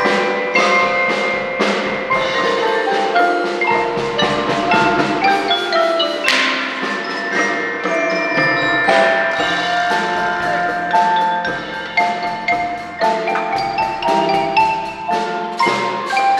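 Percussion ensemble playing a melodic piece on mallet percussion: quick runs of ringing struck notes, with a single crash about six seconds in that rings and fades.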